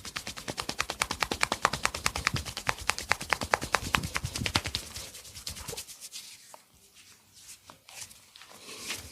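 Rapid percussive massage strokes: the hands slapping or chopping quickly and evenly on the body, about eight to ten strikes a second. After about six seconds the run stops, leaving a few scattered taps.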